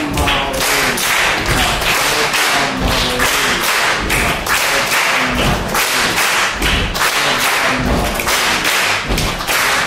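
A group of people performing a rhythm together with voice, hands and feet: chanted rhythm syllables ('jahoda, malina') over a steady pulse of sharp hand strikes and low foot stamps.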